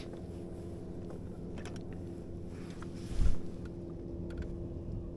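Electric bow-mounted trolling motor humming steadily in one held tone, with a single dull, deep thump about three seconds in.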